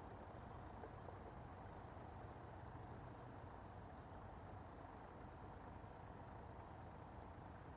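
Massey Ferguson 135 tractor engine running steadily under ploughing load, faint.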